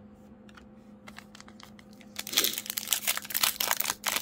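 Foil wrapper of a Panini Donruss basketball card pack crinkling and tearing as it is opened by hand, starting about two seconds in after a few faint rustles.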